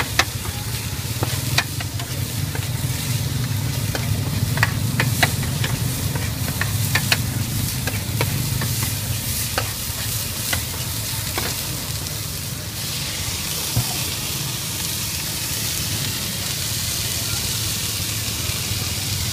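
Shredded cabbage, bean sprouts and chives sizzling on a hot flat griddle while a metal spatula scrapes and clicks against the metal surface. About two-thirds of the way through the spatula clicks stop and a steadier sizzle carries on, over a low steady rumble.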